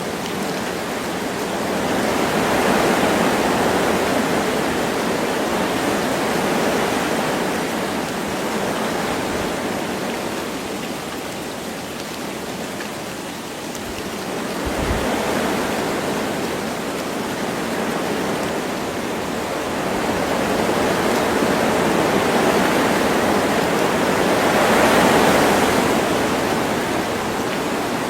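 Wind gusting through forest trees with light rain falling, a steady rushing noise that swells with a gust a few seconds in and again near the end.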